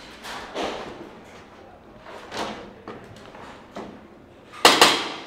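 Airsoft guns firing: scattered single shots, then two loud shots in quick succession near the end.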